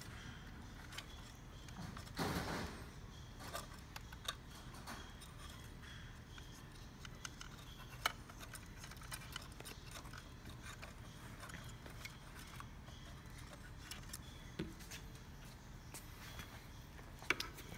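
Faint clicks, taps and rustling of printer cables and plastic parts being handled as the wires are fished down through a hole in an instrument housing. There is a louder scraping rustle about two seconds in, and a sharp click about eight seconds in.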